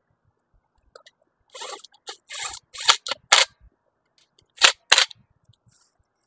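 Hand-tool and parts handling on a portable generator's alternator end: a few short rattles and sharp clicks, then two loud sharp knocks close together past the middle.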